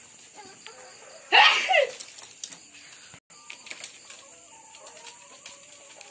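Caged laying hens pecking feed from a metal trough, with scattered light clicks throughout, and one loud, harsh squawk of about half a second about a second and a half in.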